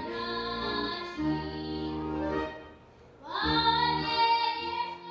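A child singing long held notes over instrumental accompaniment, breaking off briefly a little past halfway before another held note.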